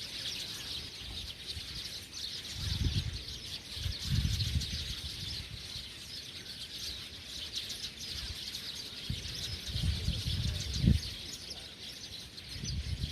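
A dense, unbroken chorus of many small birds chirping over one another in the evening. A few low rumbles come and go beneath it.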